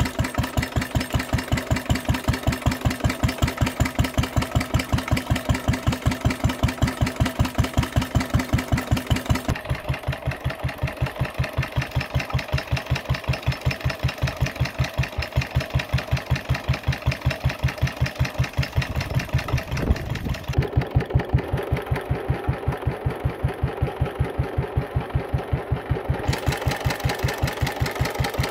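1932 Lister D type single-cylinder stationary engine running steadily with a quick, even beat of firing strokes, belt-driving water pumps.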